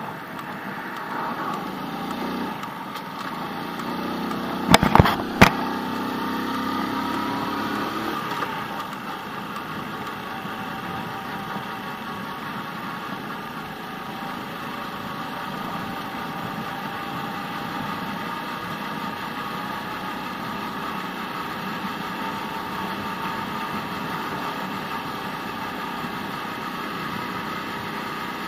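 Small motorcycle's engine running with road and wind noise while riding. A louder low hum builds for the first few seconds and falls away at about eight seconds. Three sharp clicks come close together about five seconds in.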